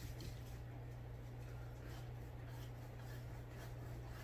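Faint rubbing of a paintbrush working acrylic paint on a canvas, over a steady low hum.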